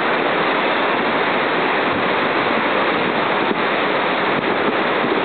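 Steady rush of surf breaking along the shore, mixed with wind noise on the microphone.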